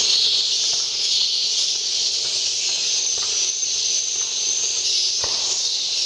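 Dense, steady high-pitched twittering of swiftlets inside a swiftlet house, mixed with the recorded swiftlet call played over loudspeakers to lure the birds in. A single knock comes about five seconds in.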